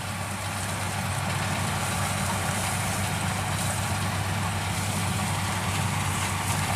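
Rice combine harvester's engine running steadily under load as it cuts, a low drone that grows slightly louder over the first second or two as the machine comes closer.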